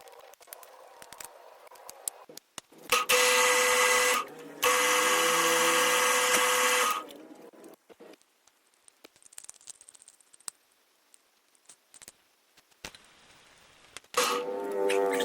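A small electric power tool runs in two short bursts, about one and two and a half seconds long, with a steady hum, then handling clicks, and it starts again near the end.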